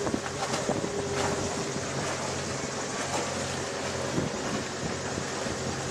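Wind buffeting the microphone and water rushing along the hull of a sailing yacht underway at sea, with a faint steady low hum and a couple of brief knocks.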